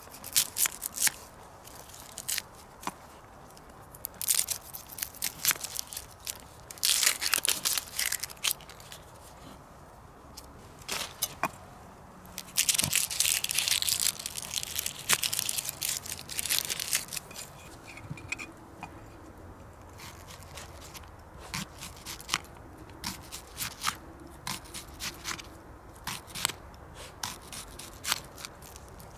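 Hands handling and cutting food on a metal cooking-pot lid: irregular crinkling, tearing and crackling of wrapping, with clicks and scrapes of a knife and metal, busiest about halfway through.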